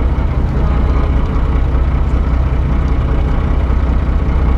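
An engine running steadily with a deep, even low rumble.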